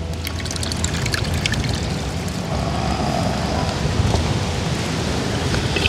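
Coconut milk poured from a pot into a small hand strainer and trickling through into a basin as the grated coconut is squeezed, over a steady hiss.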